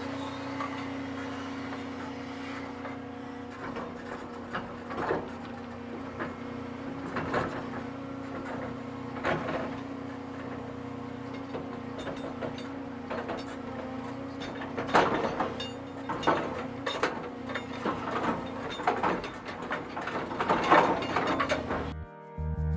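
Excavator's diesel engine running steadily, with scattered knocks and clunks of the machine at work, more of them a bit past halfway. The engine sound cuts off near the end.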